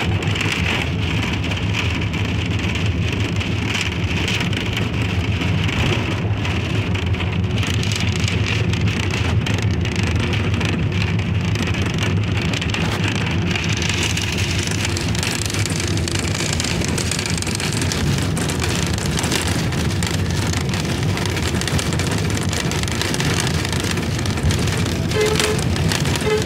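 Steady road and engine noise inside a moving bus's cabin: a low rumble under a tyre and wind hiss that grows brighter about halfway through. A few short beeps sound near the end.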